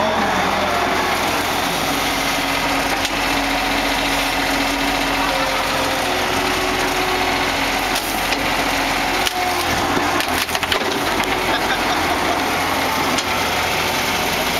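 Skid-steer loader engine running steadily as its hydraulic tree-puller attachment pushes into a small tree, with branches cracking and snapping several times, most of them between about 8 and 11 seconds in.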